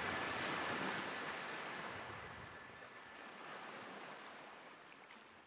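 Ocean surf: a steady wash of waves that fades out slowly.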